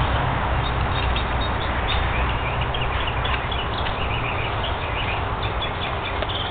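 Metal garden rake scraping and dragging through loose, clumpy soil as a bed is levelled, with small birds chirping.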